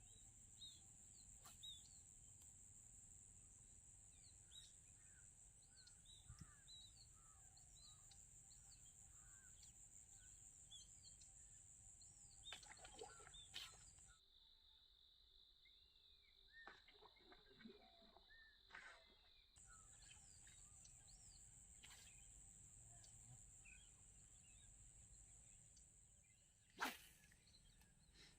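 Faint rural outdoor ambience: a steady high-pitched insect drone with scattered short bird chirps. The drone drops to a lower pitch for about five seconds midway, and a single sharp click comes near the end.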